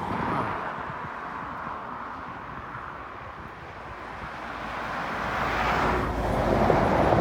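Road traffic: a vehicle passing, its tyre and engine noise swelling to a peak near the end.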